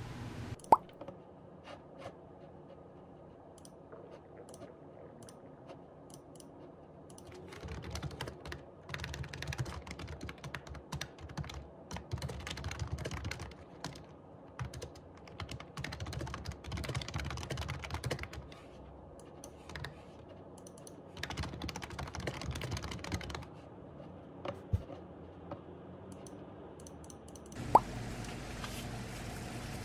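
Typing on a computer keyboard: bursts of quick, uneven key clicks with short pauses between them. A single sharp knock comes just under a second in, and another near the end.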